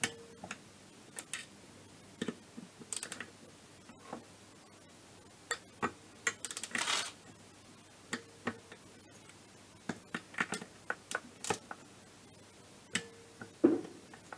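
Hand ratchet clicking in short irregular spells as bolts on a two-stroke scooter engine are tightened, with a louder knock near the end.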